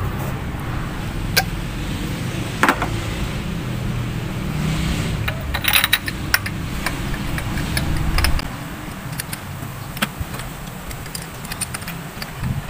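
Scattered metallic clicks and clinks of hands and parts being worked in a car's engine bay during a spark plug change, over a low steady rumble that drops away about eight seconds in.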